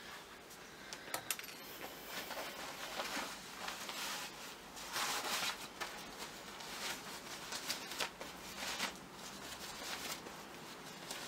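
A silky Soap & Glory shower cap rustling and scuffing against hair as it is pulled on and adjusted by hand, in irregular soft bursts, with a few light clicks about a second in.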